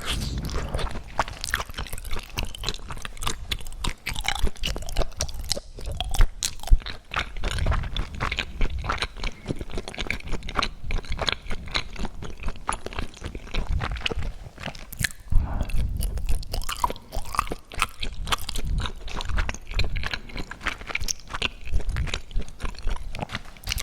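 Close-miked chewing and crunching of food, a continuous run of wet crackles and crisp clicks with soft low thumps of the jaw.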